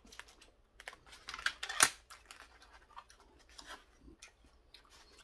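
Styrofoam takeout containers being handled, a box lifted off the stack: soft scraping, rubbing and clicking of foam, with one sharper, louder snap a little under two seconds in.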